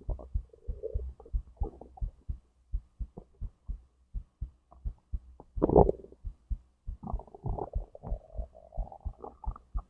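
A person's heartbeat thumping steadily under stomach and intestinal gurgling, heard at the belly. There is a short gurgle about a second in, the loudest gurgle near the middle, and a longer drawn-out rumble over the last few seconds.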